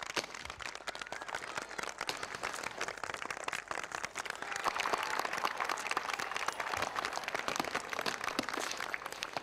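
Large crowd of spectators clapping, a dense patter of many hands, a little louder through the middle.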